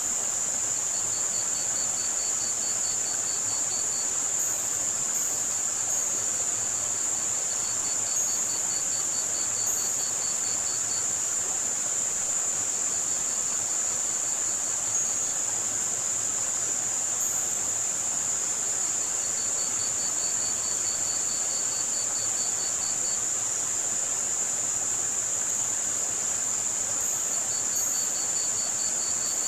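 A steady, high-pitched band of white noise, over which crickets chirp in trains of rapid, even pulses that come and go every few seconds, with faint short high chirps here and there. Under it all runs a soft running-water hiss.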